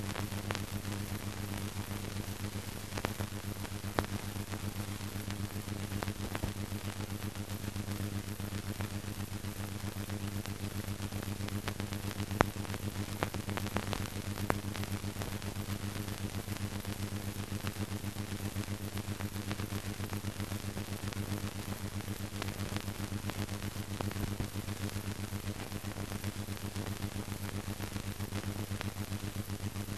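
Steady hiss and low mains-like hum of an old newsreel film soundtrack, with scattered clicks and crackles; no other sound stands out.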